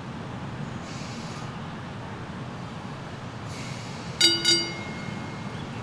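Streetcar No. 6119 running with a steady low rumble. About four seconds in, its gong rings twice in quick succession, and the second stroke rings on for about a second.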